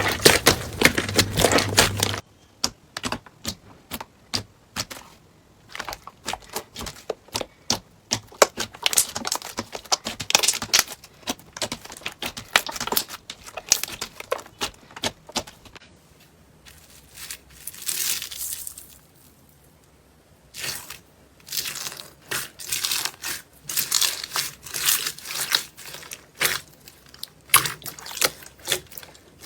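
Slime being worked by hand, giving off crackling, popping clicks. The first two seconds are a denser, louder crackle; after that come quick separate pops with short pauses.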